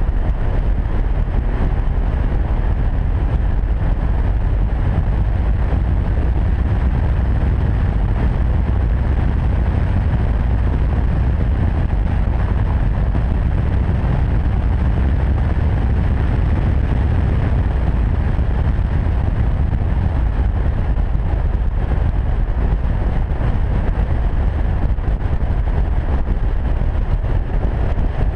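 Steady low rumble of wind and road noise from an Audi TT-S cruising at motorway speed, heard from a camera mounted on the outside of the car behind a foam wind cover. It holds even throughout, with no revving or gear changes.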